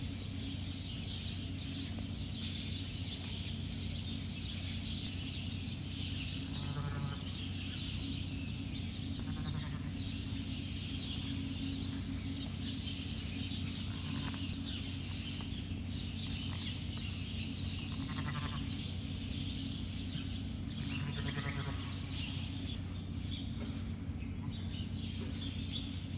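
Sheep bleating about four times, each a short wavering call, over a steady low hum.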